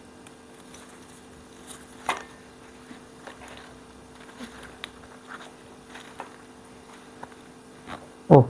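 Faint rustling and small clicks from a clothes-dryer's fabric cover and zipper being handled, over a steady low hum, with one short loud rasp near the end.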